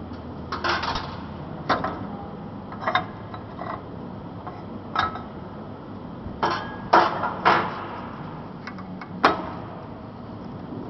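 Irregular metal clanks and knocks of steel tooling being handled during a die change on a corrugated-elbow bending machine, as the insert and roller are taken off: about ten sharp knocks, some with a brief ring, loudest around the middle and once near the end.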